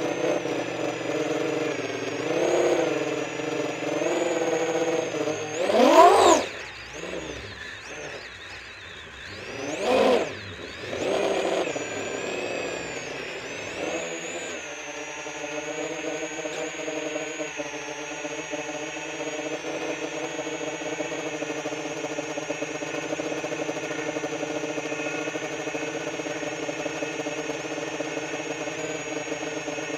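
A 10-inch FPV quadcopter's brushless motors and propellers whining, the pitch rising and falling with the throttle. Two sharp, loud throttle punches come about six and ten seconds in, then a steadier, even whine from about halfway.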